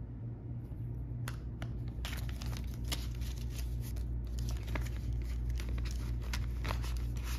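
Paper banknotes rustling and a clear plastic binder pouch crinkling as a stack of cash is handled and slid into it, a run of small crackles starting about a second in. A steady low hum sits underneath.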